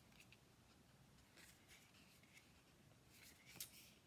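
Near silence, with faint swishes of cardstock and a small click near the end as a card is slid off the top of a handheld oracle deck.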